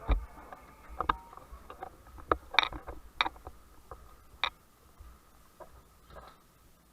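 Sharp, irregularly spaced clicks and knocks, about seven or eight, loudest in the first four and a half seconds, over a faint steady hum.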